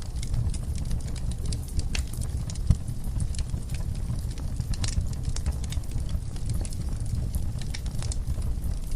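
Wood fire burning in a fireplace: irregular crackles and pops of the burning logs over a steady low rumble of the flames.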